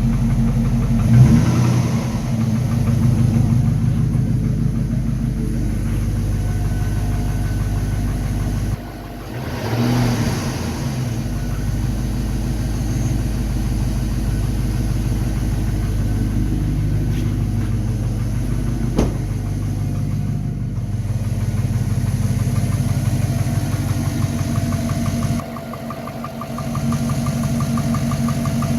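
A vehicle's replacement engine running at idle, briefly revved about a second in and again around ten seconds in, with a knocking in the running that the owner takes for piston slap on a new engine of only 15,000 km. A single sharp click comes near the middle.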